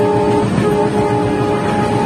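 Locomotive running at about 100 km/h, heard inside its cab: loud, steady running noise with a steady whine over it. The whine dips briefly about half a second in.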